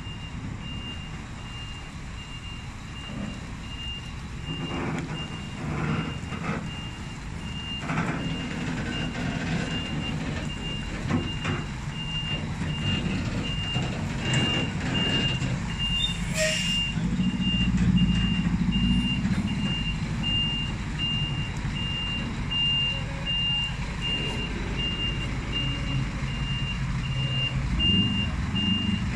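Reversing alarm beeping steadily at one pitch, about once a second, over a heavy truck's diesel engine running. The engine grows louder for a couple of seconds just past the middle.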